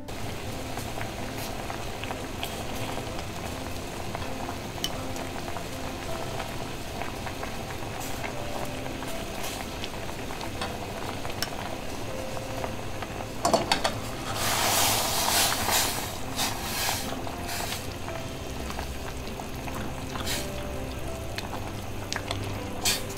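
Broth and beef marinade juices boiling hard in a stainless steel saucepan, a steady bubbling; the boil drives off the alcohol of the wine in the marinade. About halfway through there is a knock followed by a couple of seconds of louder splashing.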